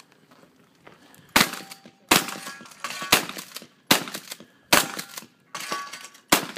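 Shotgun fired repeatedly at thrown clay targets: a string of about seven sharp shots roughly a second apart, starting about a second and a half in.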